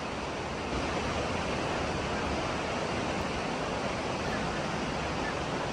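Waterfall rushing in a steady, even roar that steps up slightly in loudness just under a second in.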